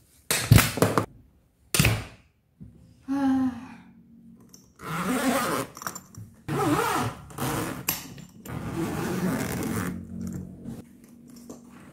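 A red fabric suitcase set down on a tiled floor with two loud thuds in the first two seconds. Then the suitcase's zipper is pulled open around its side in several long rasping strokes.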